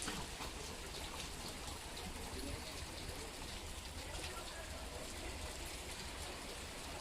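Steady patter of rain with scattered small drip ticks.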